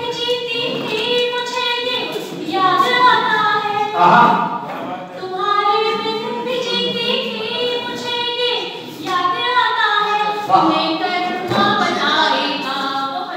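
A woman's voice singing a Hindi poem to a melody, without instruments, in long phrases with short breaths between them.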